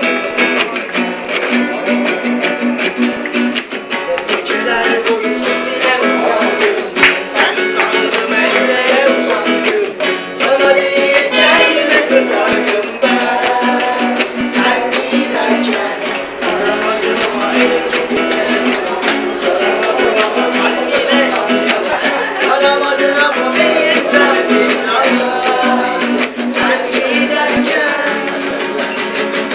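A school band playing live, with plucked string instruments prominent, in a thin recording with no deep bass.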